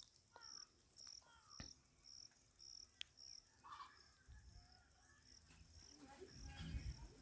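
Near silence with faint insect chirping, about two even chirps a second, and a few light clicks.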